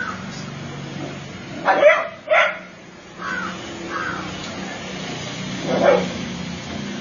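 Dog barking: two loud barks close together about two seconds in and another near the end.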